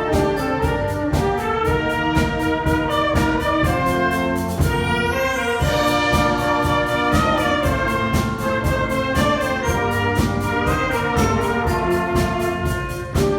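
School wind band playing, brass carrying the melody over a steady percussion beat, with a brief rising high shimmer about five seconds in.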